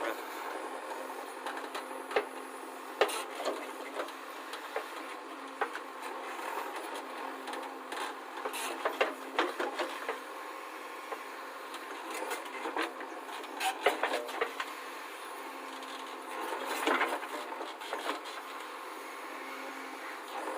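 JCB backhoe loader working, a steady mechanical running noise with irregular knocks, clanks and scraping through it. The knocks come thickest about eight to ten seconds in and again around seventeen seconds.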